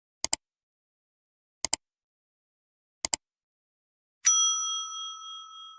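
Three sharp double clicks about a second and a half apart, then a bright bell ding about four seconds in that rings on and slowly fades.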